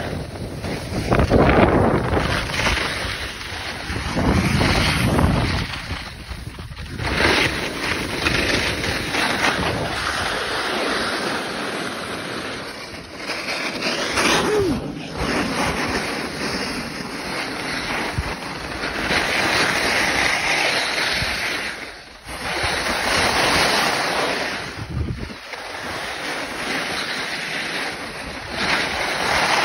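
Edges scraping and hissing over hard-packed groomed snow while riding downhill, with wind buffeting the phone's microphone. The noise rises and falls in long swells.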